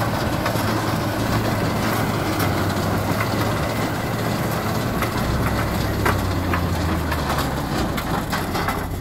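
Tractor engine running steadily under load while towing a TT 8022 mechanical sugar cane planter across a field. Over the engine's drone the planter's moving parts give a continuous irregular clatter of knocks and clicks.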